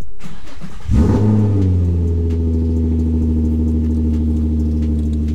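Nissan 350Z's 3.5-litre V6 being started: a brief crank, then the engine catches about a second in with a rev flare that falls away and settles into a steady idle.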